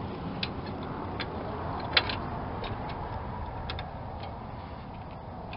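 Scattered light clicks and taps of metal cable ends and battery terminal hardware being handled, with one sharper click about two seconds in.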